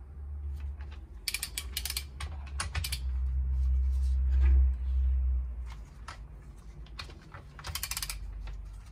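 Ratchet wrench clicking in quick runs as the cylinder head nuts of a 250 cc ATV engine are run down, with a low rumble in the middle that is the loudest part.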